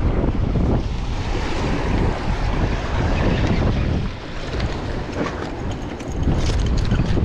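Wind buffeting the microphone in gusts, over surf washing against jetty rocks. A few light clicks come near the end.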